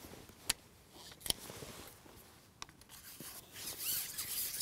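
A few small clicks, then from about three and a half seconds in a louder, rasping rub as a carbon match-fishing pole is slid out through the hands over the water.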